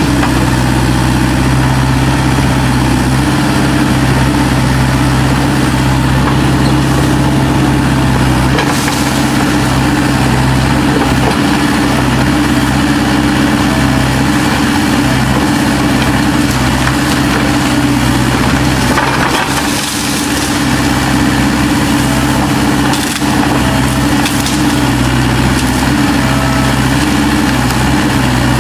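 Kubota U-45 mini excavator's diesel engine running steadily while the arm digs into brush and roots, with occasional crunching and cracking of wood, about a third of the way in and again about two-thirds in.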